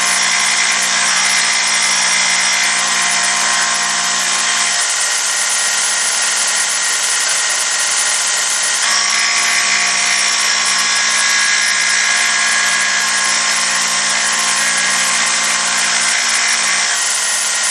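Combination belt and disc sander running steadily with a motor hum, the muzzle end of an air gun barrel held against the spinning sanding disc and slowly turned, grinding the muzzle face flat and square. The grinding hiss shifts in tone a few times as the contact changes.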